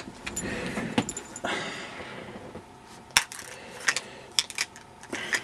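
Scattered sharp clicks, clinks and rattles of an old vacuum-tube emergency aircraft radio being handled and worked one-handed.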